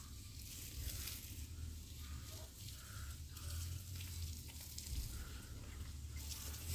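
Water spraying from a garden hose onto a concrete yard: a hiss that rises and falls as the stream is swept about, over a low steady hum.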